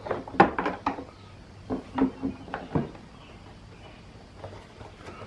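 Plastic trim cover on a Can-Am Ryker being fitted and snapped back into place: a quick run of clicks and knocks in the first second, then three or four more knocks around two to three seconds in.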